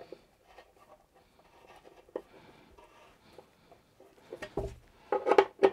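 A steel bolt being screwed by hand into a freshly threaded hole in MDF, giving faint scraping and ticking. A soft knock comes about four and a half seconds in, then short pitched squeaks near the end.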